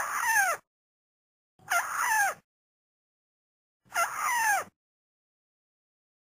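White-browed crake calling: three short calls about two seconds apart, each a quick upward sweep followed by falling glides. It is a looped lure recording, with dead silence between calls.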